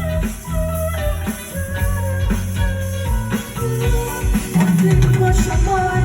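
A band playing an instrumental passage of a pop song: a melodic lead line over a steady bass and a drum beat, with no singing.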